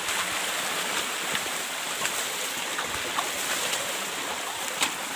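Shallow forest stream running over rocks, a steady rush, with scattered clicks and splashes of footsteps wading through it and one sharper knock near the end.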